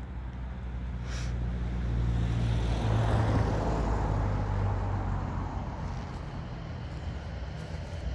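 Motor vehicle noise: a low engine rumble with a broad rush of road noise, swelling to a peak about three seconds in and then slowly fading.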